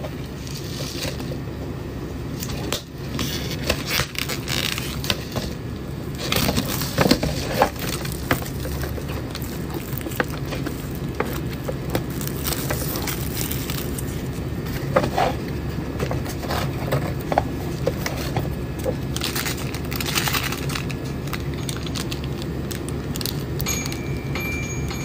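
Crinkling and scraping of an instant ramen cup's plastic and paper packaging as it is handled and its lid is opened, in scattered short crackles over a steady low hum. A short high tone sounds near the end.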